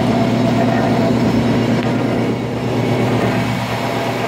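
El Galeón 70-ton pneumatic punch press running, giving a steady mechanical hum with a low drone; no press stroke or impact is heard.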